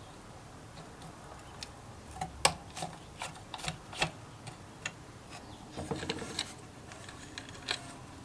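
Irregular light clicks and taps of small hard objects being handled, one sharper knock about two and a half seconds in and a quick cluster around six seconds.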